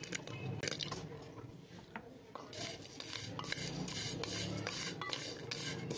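Hard jaggery-sesame rewari pieces clicking into an aluminium karahi of sesame seeds. From about two and a half seconds in, a wooden spatula stirs them round the pan with a steady run of scraping strokes, seeds and candy rasping against the metal.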